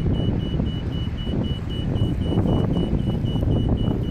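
Low rumble of city street traffic, with a high electronic beep repeating about four times a second.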